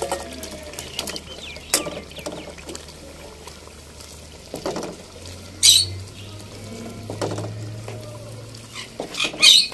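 Peeled boiled eggs dropped one by one into a simmering masala in an aluminium pot, with soft wet bubbling and a silicone spatula knocking and scraping against the pot. Two short, sharp, high chirps stand out, one about halfway through and one at the very end.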